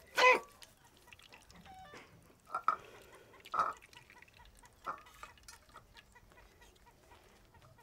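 A chicken held down for slaughter gives several short, sharp clucks, the first the loudest and the rest a second or so apart.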